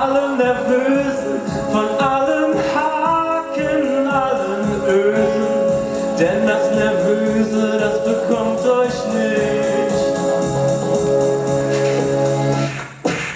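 Live performance music between sung lines: a steady beat under long held notes. The music drops out briefly near the end, then starts again.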